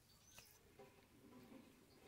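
Near silence, with faint scrapes and clicks of fish being cleaned against a boti blade, the sharpest about half a second in.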